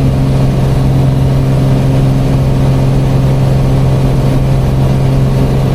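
Piper PA-28 Archer's four-cylinder piston engine and propeller running steadily at climb power, a loud even drone.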